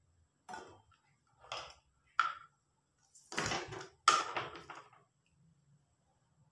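Short knocks and rustles of hands handling green chillies and a kitchen knife on a counter: five separate sounds, the longest and loudest about three and four seconds in.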